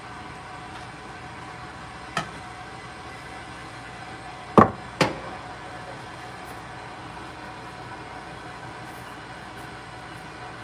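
Three sharp knocks over a steady background hum: one about two seconds in, then a louder close pair about four and a half seconds in. The knocks come from the glass mixing bowl on the counter as hands work the crumbly dough.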